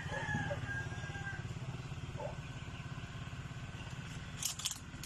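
A small engine running with a low, even pulse, slowly fading as it moves off. A few brief high calls sound in the first half, and a cluster of sharp clicks comes near the end.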